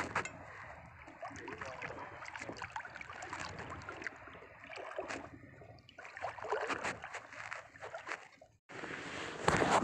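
Shallow seawater sloshing and lapping around a wading angler, with scattered small splashes and knocks. It cuts off suddenly near the end, giving way to a steadier hiss and a brief loud rush.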